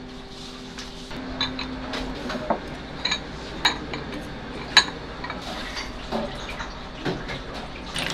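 Chopsticks and tableware clinking while a sashimi platter is plated: a string of separate sharp clinks and taps about a second apart, over a low steady hum.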